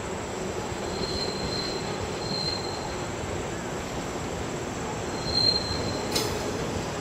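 JR 189 series electric train rolling slowly through the yard. Its wheels squeal high-pitched in short spells, about a second in, at two and a half seconds, and loudest around five and a half seconds, over a steady rolling rumble. A single sharp knock comes just after six seconds in.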